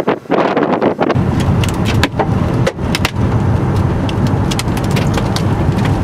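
Hailstones striking a car in many scattered sharp clicks, over the low rumble of the car driving, which sets in about a second in.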